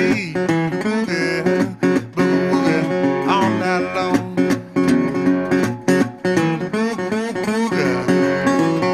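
Background music: an acoustic guitar song with a steady strummed beat.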